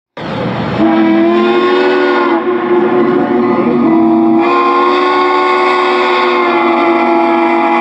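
Steam locomotive chime whistle: a brief rush of steam, then one long steady blast of several tones sounding together, whose upper tones thin out about two seconds in and come back about four and a half seconds in.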